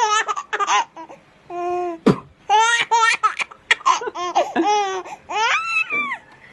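A baby laughing in repeated high-pitched bouts of giggles with short pauses between, and one sharp knock about two seconds in.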